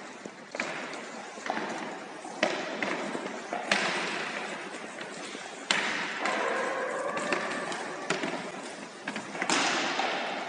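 Wooden sticks knocking rubber balls along a wooden gym floor: irregular knocks and thuds, a few sharper than the rest, echoing in a large hall.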